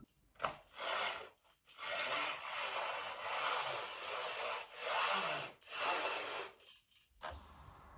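A series of rough scraping or rubbing strokes, each lasting up to about a second, with short gaps between them.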